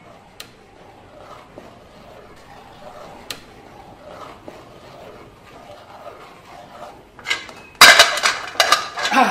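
Faint scraping and a few light clinks of a spoon stirring in a metal cooking pot, then a burst of loud clattering and knocks near the end.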